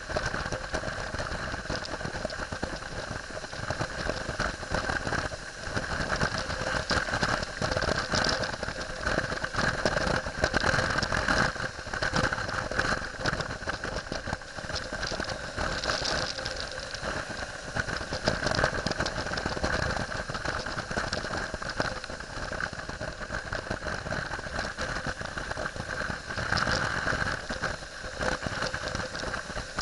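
Wind rushing and buffeting over a helmet camera's microphone while a BMW F800GS motorcycle rides at road speed, its parallel-twin engine running steadily underneath the wind noise.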